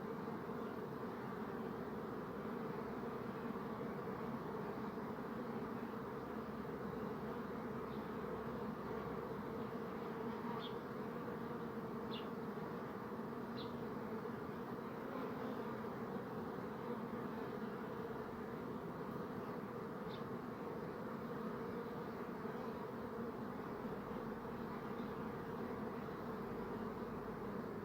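Many bees buzzing together in a steady, dense hum, with a few faint high chirps near the middle.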